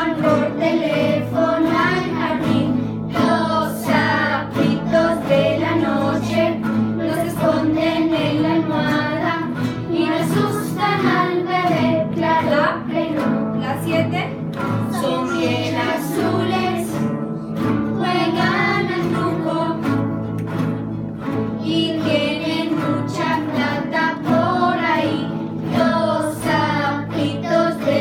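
A group of children singing a children's song together while strumming acoustic guitars, some of them nylon-string classical guitars, with a teacher's guitar playing along.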